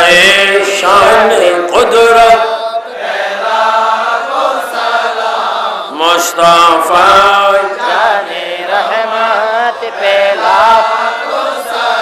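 A man chanting a devotional song in praise of the Prophet in a slow, drawn-out melody, his voice gliding and wavering on long held notes with short breaths between phrases.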